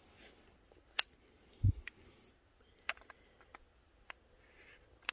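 Steel vernier caliper clinking against a metal scooter variator pulley as it is set in place for a measurement. A sharp ringing metallic clink about a second in is followed by a dull bump and several lighter ticks.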